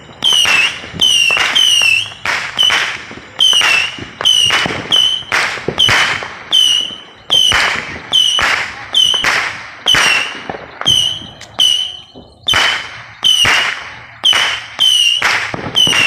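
Saturn missile battery firing shot after shot, roughly one to two launches a second. Each launch is a sharp pop followed by a short whistle that dips slightly in pitch. There is a brief lull about three-quarters of the way through.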